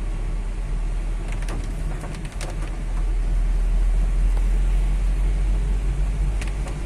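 Steady low rumble of a car's engine and tyres on a wet road, heard from inside the cabin, growing louder about three seconds in, with a few light taps.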